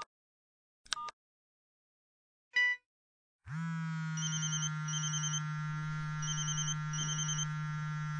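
Cell phone ringtone: two short electronic ring blips about a second apart, a single lower beep, then from about three and a half seconds in a steady low vibrating buzz with high trilling beeps coming in pairs.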